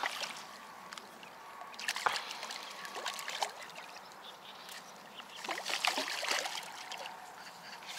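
A large carp, shot with a slingshot arrow and held on braided line, thrashing and splashing at the water's edge: a burst of splashing about two seconds in and a longer one around the middle to late part.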